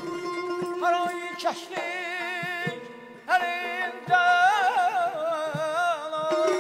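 Azerbaijani mugham ensemble playing live: a high lead melody with heavy trills and vibrato over a steady held string note, with scattered frame-drum and drum strokes. The lead line breaks off for a moment around the middle and comes back in.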